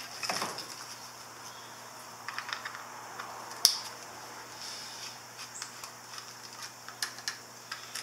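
Small plastic clicks and ticks of a motorcycle fuse box being handled and pried open with a screwdriver, with one sharp snap about three and a half seconds in, as the box is opened to check for a blown fuse.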